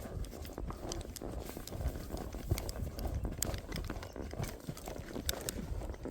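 A mule's hooves clopping irregularly on the ground as it walks along a trail.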